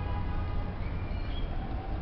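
Steady low rumble of street traffic, with a few faint, short high chirps about halfway through.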